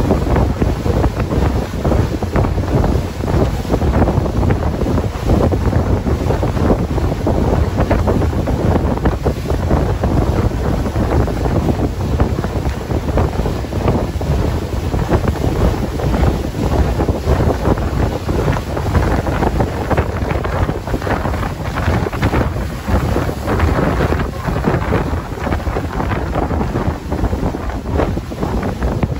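Loud wind buffeting the microphone aboard a small open speedboat running at speed, an even rushing noise with the boat moving over the water beneath it.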